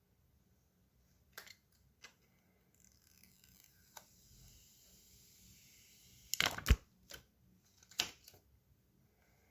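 Hands handling a new phone and its packaging: a few light clicks, a soft rustle for several seconds, then a cluster of sharp knocks about six and a half seconds in and another knock about eight seconds in.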